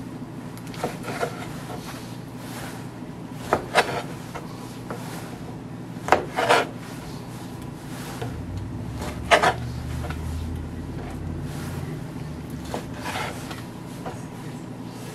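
Chef's knife slicing raw chicken breast on a plastic cutting board: a handful of sharp knocks as the blade meets the board, some in quick pairs, with soft scraping between them.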